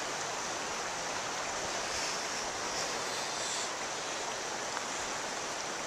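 A shallow mountain river rushing steadily over rocks.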